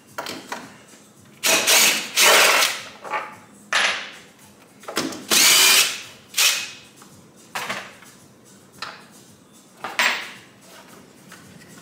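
Cordless drill-driver running in about eight short bursts, backing screws out of a wall-mount bracket; the longest runs come around two and five seconds in.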